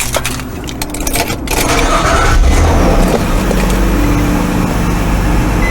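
Car engine started by the ignition: clicks, then the engine catches about a second and a half in and settles into a steady idle.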